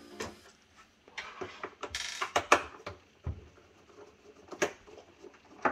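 Screwdriver working Torx screws out of a Philips espresso machine's plastic housing: scattered clicks and knocks of the bit and plastic, with a longer scraping stretch about two seconds in.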